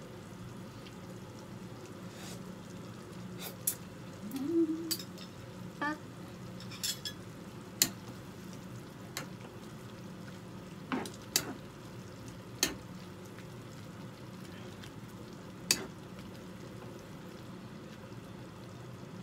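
Metal ladle stirring soup in a frying pan, with scattered sharp clinks and taps against the pan, over a steady low background hum.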